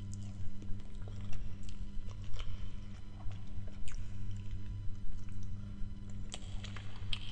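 Close-miked chewing and wet mouth sounds of someone eating spaghetti in tomato sauce: irregular smacks and clicks, several a second, over a steady low hum.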